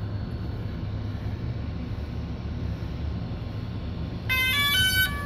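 DJI Spark drone powering on: its start-up chime, a short tune of stepped electronic beeps, sounds about four seconds in, over a steady low hum. The chime marks the drone booting up before its gimbal self-test.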